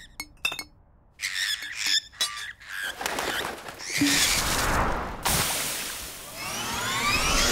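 Cartoon bird sound effects from a flock: short chirps in the first few seconds, then a rush of noise with wing flapping, and a cluster of quick rising chirps near the end.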